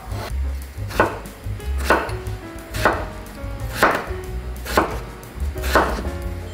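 Chef's knife dicing peeled raw potatoes on a wooden cutting board: six firm cuts about a second apart, each ending in a sharp knock of the blade on the board.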